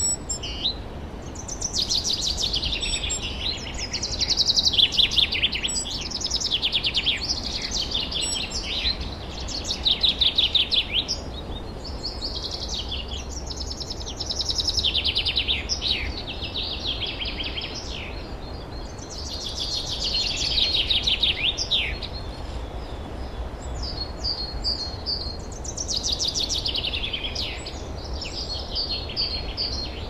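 Forest songbirds singing: repeated songs about two to three seconds long, each a rapid run of notes falling in pitch, coming every few seconds and sometimes overlapping.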